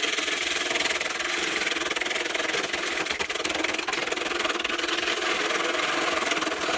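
Wood lathe spinning a piece of tree-stump wood while a turning tool cuts into it: a steady, rough scraping hiss over the faint hum of the lathe.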